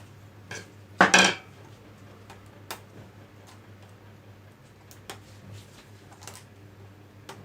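Small hard parts and tools clicking and clinking as the opened projector is handled, with one louder clatter about a second in and a few light clicks after.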